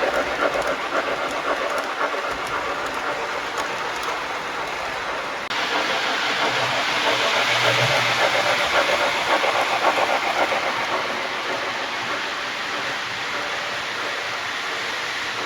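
O gauge model train running on the layout, its onboard sound system playing steam locomotive chuffing and hiss over the rumble and clicking of wheels on the track. The sound changes abruptly about five seconds in.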